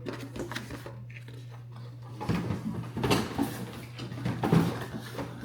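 Rustling, light clicks and knocks of a car radio and its packaging being handled and turned over, busier after about two seconds, over a steady low hum.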